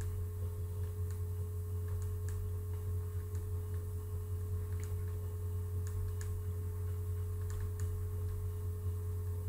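Steady low electrical hum with a fainter, higher steady tone over it, and a scattering of faint short ticks.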